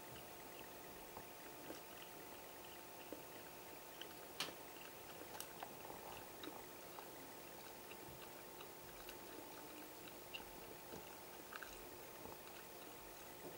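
Faint steady hum with scattered small clicks and ticks, one sharper click about four and a half seconds in.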